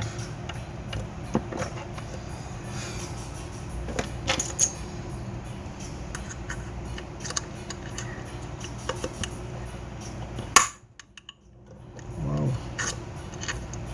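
Scattered small clicks and clinks of metal tools and electronic parts being handled on a workbench while an amplifier's power-supply MOSFETs are worked on, over a steady low hum. A sharp click about ten seconds in is followed by a brief drop to near silence.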